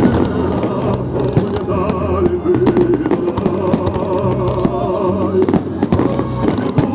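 Fireworks display going off: a rapid, irregular string of bangs and crackles, with music playing at the same time.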